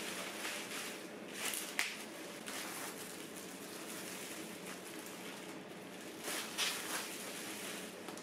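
Thin plastic wrapping crinkling and rustling as it is pulled off a corrugated cardboard cat scratching board. The crinkles come in short bursts, loudest about a second and a half in and again about six seconds in.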